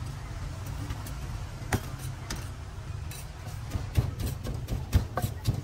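A wooden pestle pounding in a mortar to make papaya salad: a few scattered knocks, then steady strokes about two or three a second from a little past halfway, over a steady low rumble.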